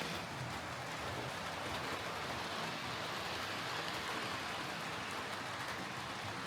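Hornby Railroad Class 9F OO gauge model steam locomotive running on track: a steady whirr of its motor and gears with the rolling rush of its wheels on the rails.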